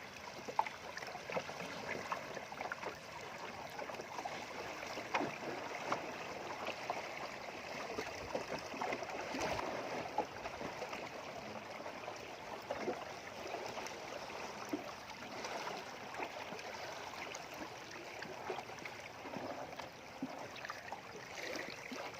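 River water splashing, trickling and dripping close by, with many small irregular splashes and light knocks, as a gillnet is checked from a small boat.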